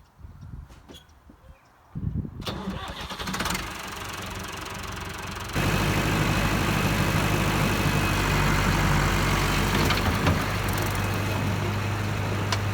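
Renault 751-4S tractor's diesel engine starting about two seconds in and running at idle, then stepping up suddenly to a louder, steady run about five and a half seconds in.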